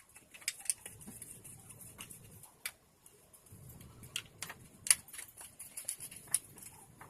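Irregular sharp clicks and light taps, several scattered through, the loudest a little before the five-second mark, over a faint low rumble.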